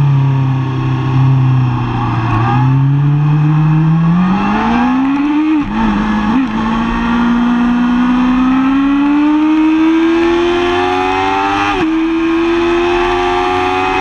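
2005 Yamaha R6's 600 cc inline-four engine heard on board as the bike pulls away and accelerates. The revs climb, drop sharply at a gear change about five and a half seconds in, then rise slowly and steadily through the rest.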